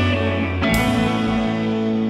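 Background music, with a new chord struck about half a second in and left to ring.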